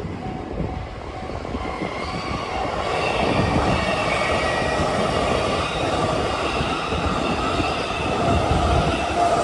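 JR East E233-series electric train running past on the rails, its wheel and rolling noise growing louder about two seconds in and staying loud, with faint high-pitched tones above the rumble.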